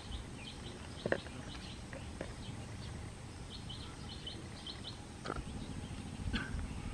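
A bird chirping in quick runs of short high notes over low outdoor rumble. There is a sharp knock about a second in and a few fainter knocks later.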